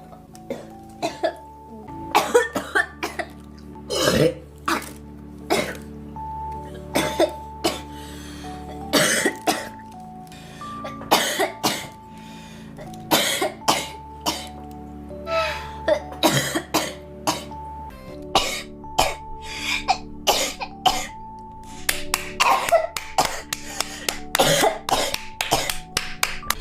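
A girl coughing over and over, single coughs and short runs of two or three, roughly one a second.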